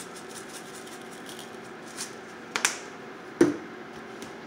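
Seasoning shaker shaken over a mixing bowl: a soft rapid rattle of shakes that stops about a second in. Then a brief scrape and a single sharp knock about three and a half seconds in, as the shaker is set down on the counter.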